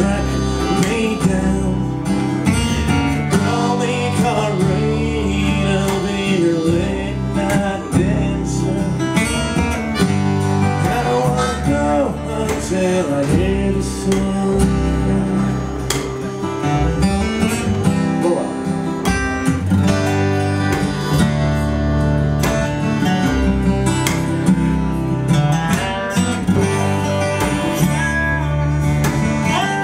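Instrumental break by a small acoustic blues band: acoustic guitar and double bass keep the groove while harmonica and a lap-played slide guitar take bending, gliding lead lines.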